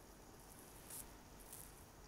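Near silence: faint steady hiss, with one brief faint high-pitched tick about halfway through.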